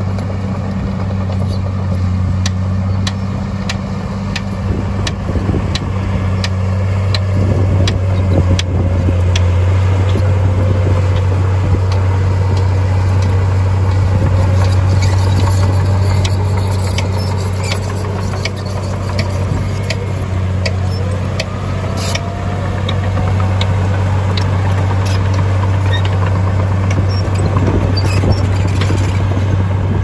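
Heavy diesel construction machinery running steadily with a deep hum, with many sharp metallic clanks and knocks throughout and a faint whine that rises and falls in the middle.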